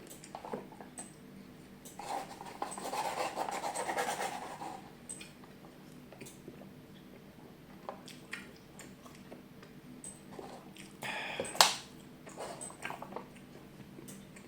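Close-miked eating sounds: wet chewing and small mouth clicks, with a denser spell of louder chewing about two to five seconds in. A brief louder noise ending in a sharp click comes about eleven seconds in.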